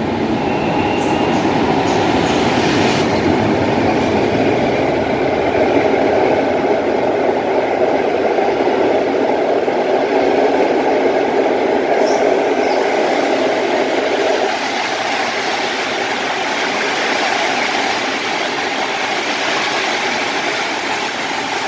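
A passenger train hauled by an EP08 electric locomotive runs into an underground station platform, its carriages rolling past with a steady running noise. The noise eases a little about two-thirds of the way through.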